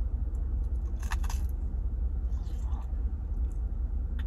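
Steady low rumble of a car heard from inside the cabin, with a few short crunching chews about a second in as a crusted potato corn dog is eaten.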